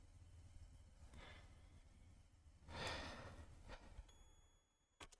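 Near silence over a low hum. A person sighs, an audible exhale about three seconds in. Near the end a faint high-pitched whine is heard, then a couple of sharp clicks.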